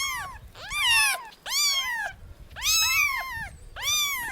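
Domestic cat meowing over and over, about five meows in a row, each rising then falling in pitch.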